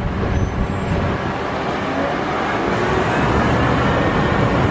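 Street traffic noise: a motor vehicle's engine and tyres going by, growing gradually louder.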